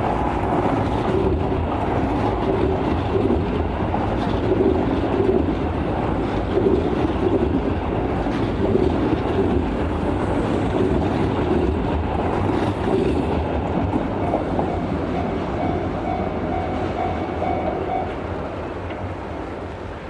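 Shin-Keisei 8000 series electric train passing over a level crossing: a steady rumble of wheels on rail, with a rhythmic clack about once a second from wheels crossing rail joints. It fades in the last couple of seconds as the train draws away, and the crossing's warning bell is heard ringing now and then.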